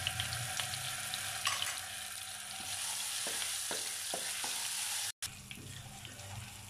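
Garlic paste and cumin seeds sizzling in hot oil in a nonstick wok, with a wooden spatula scraping and clicking against the pan as it stirs. The sound cuts out for an instant about five seconds in and is quieter after.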